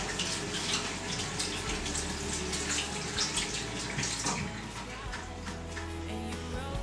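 Irregular wet squelches and splashes of hands working with water and wet hair, over a steady low hum.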